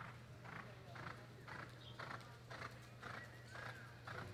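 Horse's hoofbeats, even and about two a second, over a steady low hum.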